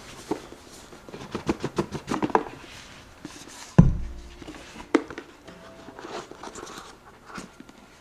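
A small cardboard product box being handled and opened: a run of light taps and clicks, then a single loud dull thump just before the middle, another sharp click a second later, and a few faint clicks.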